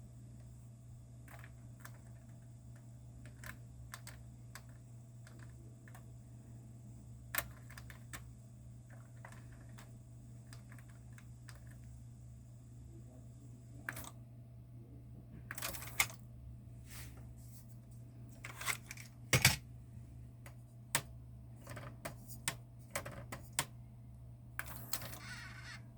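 Akai GX-9 cassette deck being operated: a steady low hum with scattered mechanical clicks and clunks from its transport and controls. A faint high whine stops about halfway through, after which the clicks come more often and louder, the loudest about three-quarters of the way in.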